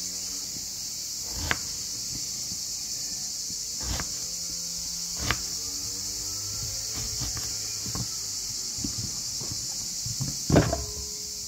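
Kitchen knife slicing an eggplant into rounds on a plastic cutting board: a few separate knocks as the blade meets the board, a second or more apart, the loudest near the end. A steady high hiss lies under it throughout.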